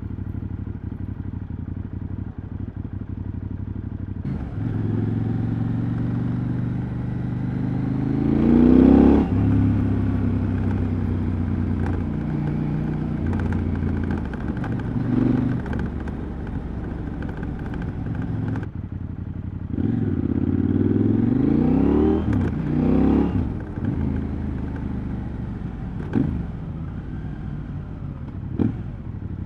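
KTM 790 Adventure's parallel-twin engine and exhaust while riding, running steadily at first, then pulling away twice with the pitch rising through the revs, about a third of the way in and again past the middle. Between and after the pulls it runs at an even engine note, with a few short clicks near the end.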